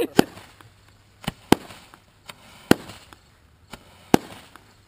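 Consumer fireworks cake firing its aerial shots: a string of loud sharp bangs a little over a second apart, with fainter pops in between.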